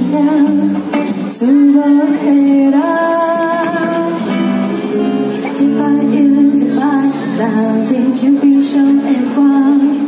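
Live amplified band music: a woman singing with acoustic guitar strumming and a backing band.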